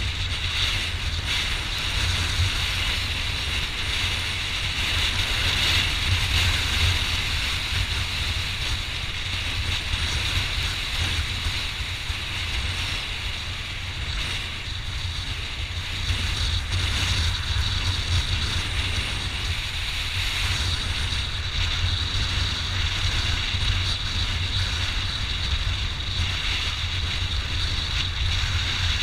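Motorcycle riding at road speed, heard as steady wind rush on the bike-mounted camera microphone over the low rumble of the engine and tyres.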